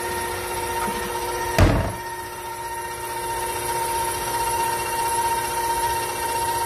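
Electric mixer motor running at a steady speed with a constant whine, creaming butter and sugar, with one short thump about one and a half seconds in.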